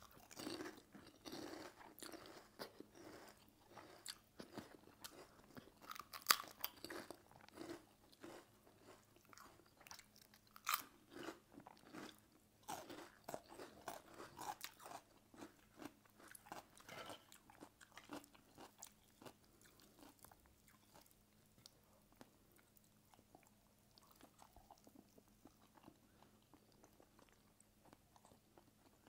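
Close chewing and crunching of food eaten by hand, with crisp bites of papad. A few bites are louder, and the crunching thins out in the last third.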